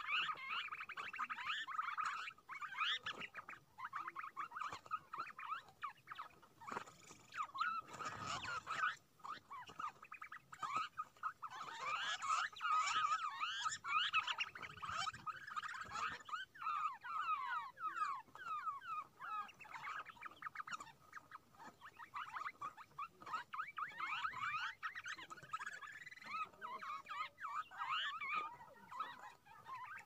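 A flock of small birds chattering: many quick call notes overlapping, busiest in the middle and thinning near the end.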